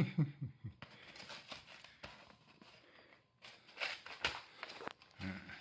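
Shoji paper rustling and tearing in short, scattered crackles as a kitten claws and pulls at it on the screen frame.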